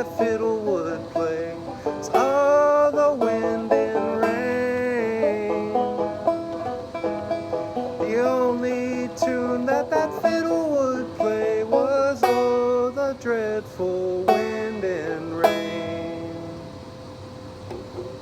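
Banjo playing the instrumental close of a ballad: picked notes with some bent and sliding notes, ending in a final strum that rings and fades away near the end.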